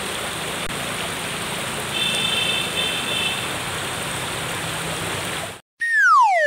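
Steady rush of a shallow rocky stream, with two short high-pitched calls about two seconds in. The stream cuts off suddenly near the end, and a loud falling whistle glide follows.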